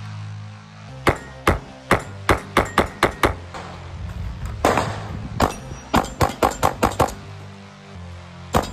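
Pistol fired shot after shot in quick strings of sharp cracks, about eight in a row, then a short break, then about seven more and a last one near the end, over background music with a steady beat.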